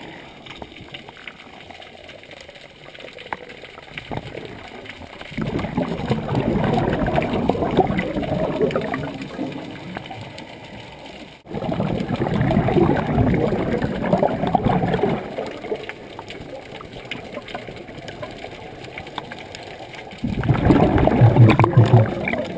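Scuba diver breathing underwater through a regulator: three long surges of exhaled bubbles, gurgling and rumbling, the last one shorter, with quieter stretches between.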